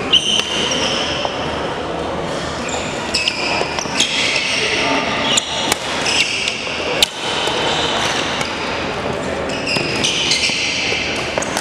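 Badminton rally: rackets sharply striking the shuttlecock several times, with court shoes squeaking on a hardwood gym floor, over voices in the hall.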